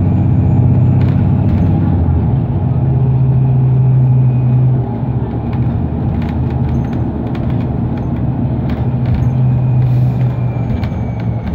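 Interior sound of a New Flyer Xcelsior XDE60 diesel-electric hybrid articulated bus on the move: a steady low drivetrain hum with a faint high whine. The hum eases off about five seconds in, with light rattles and clicks after.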